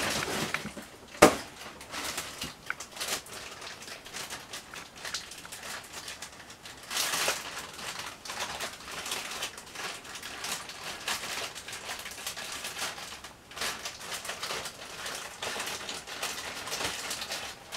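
Clear plastic parts bag crinkling and rustling in the hands as it is opened, in irregular bursts, with one sharp knock about a second in.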